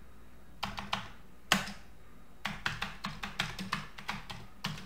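Typing on a Commodore 64 keyboard: a few key clicks just after the start, one heavier stroke about a second and a half in, then a quick run of a dozen or so keystrokes entering a modem dial command.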